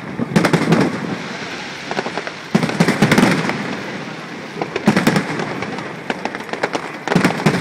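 Aerial fireworks shells going off in volleys of sharp bangs and crackles, about every two seconds, each volley trailing off in a rolling rumble.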